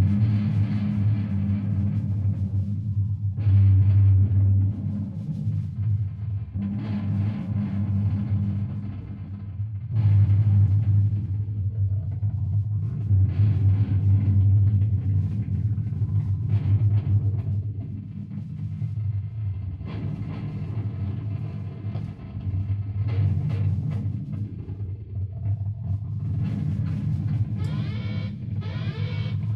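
Experimental noise played through guitar effects pedals: a heavy, low distorted drone that swells and falls back every few seconds, with warbling pitch sweeps near the end.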